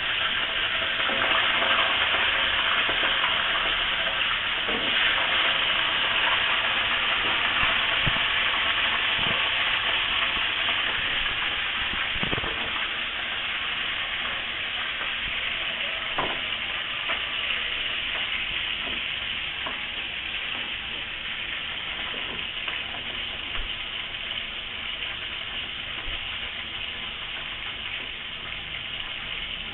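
Chicken and gizzard-liver pieces frying in hot oil in a wok: a steady sizzle that slowly dies down. A few sharp knocks are heard in the first half.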